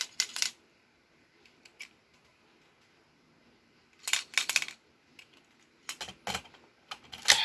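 Hard plastic clicks and rattling clatter from handling a DX Build Driver toy belt and its Full Bottles. There are short bursts of rapid clatter about four seconds in and again near the end, closing on a sharp click.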